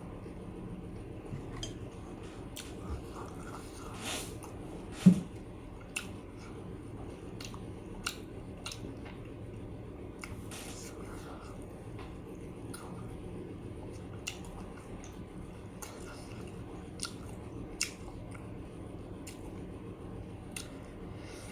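A person chewing and biting food, with scattered small clicks and one louder knock about five seconds in.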